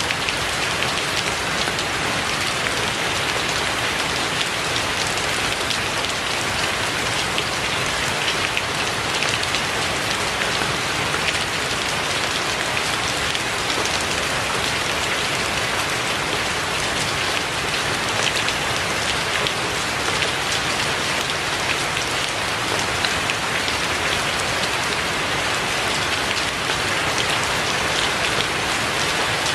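Steady rain falling: a dense, even hiss of many small drop impacts that keeps the same level without a break.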